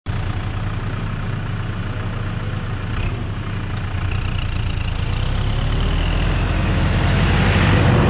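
ArmaTrac 1104 Lux tractor's diesel engine running as it pulls an inter-row cultivator down the corn rows toward the camera, growing steadily louder. A faint whine joins about halfway, and a rush of noise swells near the end as the tractor passes overhead.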